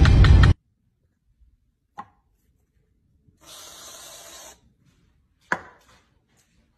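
A loud mix of music and voices cuts off about half a second in. Then an aerosol whipped-cream can hisses steadily for about a second as it sprays a dollop into a glass, with a single click before it and a sharp knock after it.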